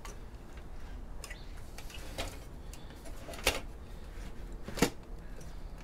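Scattered light clicks and knocks of metal parts being handled inside a desktop PC case while the drives are worked loose, the two sharpest about three and a half and five seconds in.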